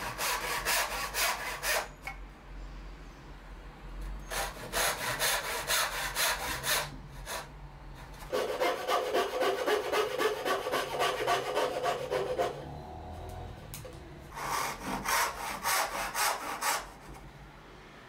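Hand backsaw cutting dovetails in hardwood: four bursts of quick back-and-forth rasping strokes with short pauses between. The third run, about halfway through, is the longest, with denser strokes and a deeper tone.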